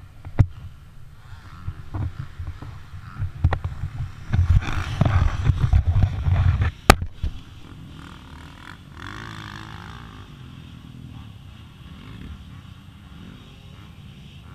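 Handling noise on an action camera after a motocross crash: uneven rumbling and scraping as it knocks about against the fallen rider and the dirt, with two sharp knocks about half a second and about seven seconds in. It is loudest in the middle and then settles to a quieter steady background.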